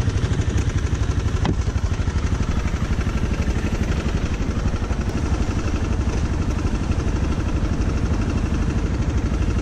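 Dual-sport motorcycle engine idling steadily with an even pulsing beat, heard close up from the rider's seat. A single light click comes about one and a half seconds in.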